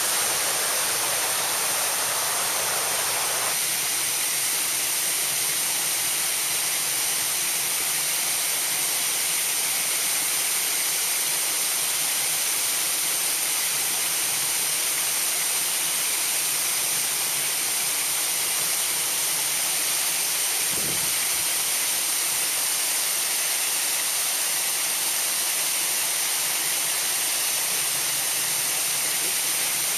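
Water pouring over a small weir in an irrigation canal into the pool below: a constant, even rushing.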